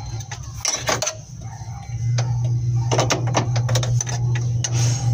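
Open-end wrench clicking and scraping on the brake line fitting of a brake master cylinder as the line is worked loose: irregular sharp metal clicks over a steady low hum, which drops out briefly about a second in.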